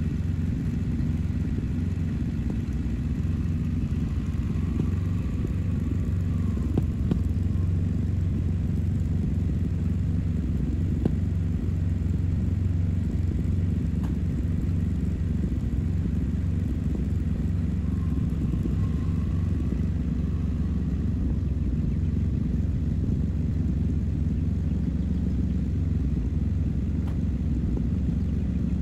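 Old pickup truck engine running steadily, a low even rumble that holds at one level.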